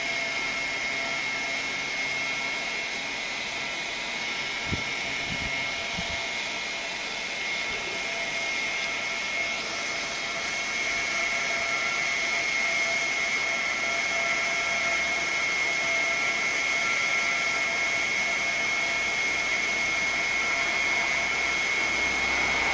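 A small electric fan running steadily: an airy rush with a fixed high whine, getting slightly louder partway through. A few soft knocks come about five seconds in.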